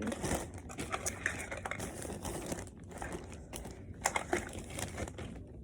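Plastic packaging crinkling and rustling in irregular bursts as items are rummaged through while hunting for one.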